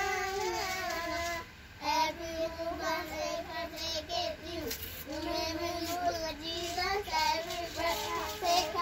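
A young child singing in long, wavering held notes, with a brief pause about a second and a half in.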